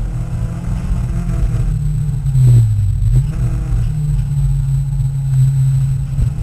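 Peugeot 306 racing car engine at full throttle, heard from inside the cabin on a loose dirt track. Its pitch dips briefly about two and a half seconds in, with a couple of knocks, then climbs again.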